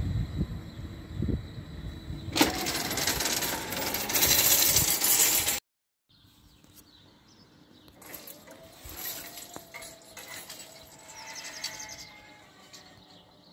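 Cantus Stadler FLIRT electric train running past, a rumble that swells into a loud rushing noise about two seconds in and cuts off abruptly about five and a half seconds in. After that only faint outdoor background with a few small clicks.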